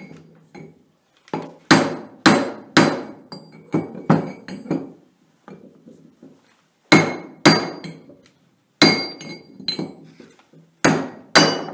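Hammer striking a brass drift rod to drive an old bearing race out of an NP205 transfer case idler cluster gear: sharp metallic blows with a short ring, in bursts of two or three with pauses between.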